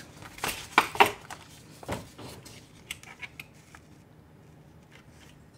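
Printed paper sheets rustling as they are handled, with two sharp clicks about a second in from a clipboard's metal spring clip, then a few lighter clicks before it goes quiet.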